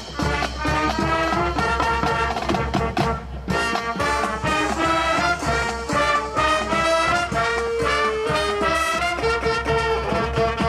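Background music: an upbeat swing-style instrumental tune with brass and a steady beat, cutting off at the very end.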